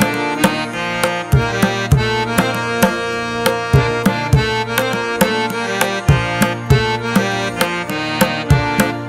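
Instrumental background music: hand-drum beats several times a second over a sustained melody.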